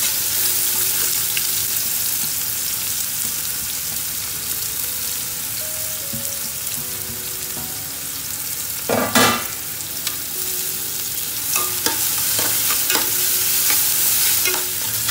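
Sliced onions frying in hot ghee in a metal pot, a steady sizzle, while a metal ladle stirs them and clicks against the pot now and then. A brief louder noise comes about nine seconds in.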